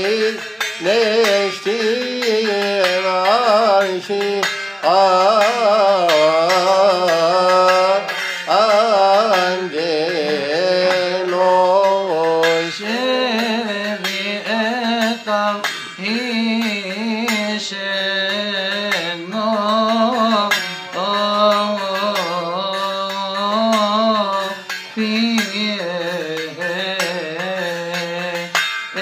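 Coptic hymn chanted by voices in a fairly low register, with steady rhythmic strikes of small brass hand cymbals. The cymbals ring on in a bright metallic shimmer through the second half.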